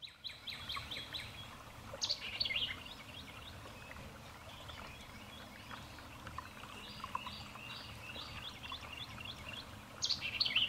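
Small birds chirping and calling over a steady outdoor hiss. A quick run of repeated notes comes at the start, and louder bursts of fast descending notes come about two seconds in and again near the end.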